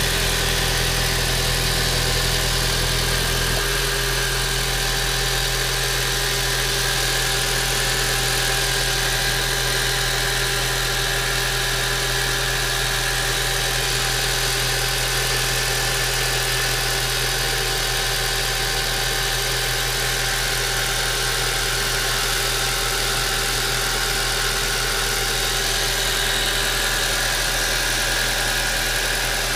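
1.8T turbocharged four-cylinder engine running steadily at idle, making the unusual noise its owner calls a strange engine sound. The deepest part of its hum drops away about three and a half seconds in.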